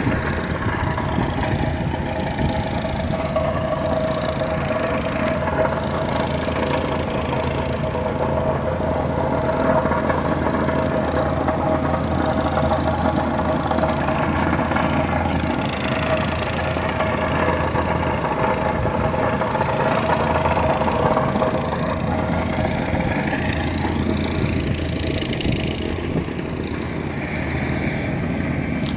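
An engine running steadily, with a constant low hum and a held mid-pitched tone.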